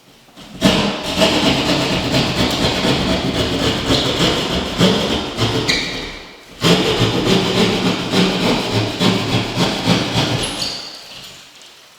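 A power tool run twice in long bursts, with a short break about six and a half seconds in. It starts abruptly each time with a rough, rattling, juddering sound.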